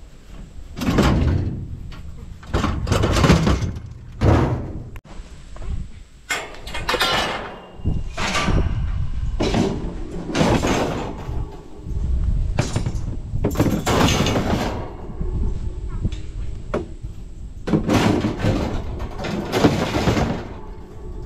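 A scrap chest freezer and other metal appliances are shoved and slid around a pickup truck's bed, making a run of loud scrapes, bangs and thuds of sheet metal.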